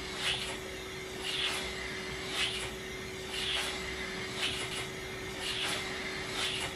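Model beam engine running on air blown by a vacuum cleaner: its cylinder exhausts in short hissing puffs about once a second. Under the puffs is the steady whine of the vacuum cleaner motor.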